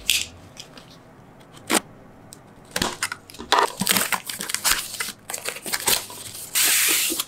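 Taped cardboard mailer package being handled and opened by hand: a few knocks, then rustling and crinkling of paper and tape, ending in a loud rasp of about half a second near the end.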